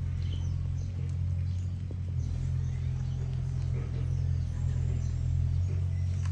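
A steady low mechanical hum or drone, unchanging throughout, with faint high chirps here and there.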